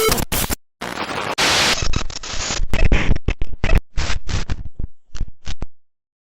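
Loud static and glitching noise, chopped into stuttering bursts with abrupt cuts. The bursts grow sparser and the sound cuts off near the end.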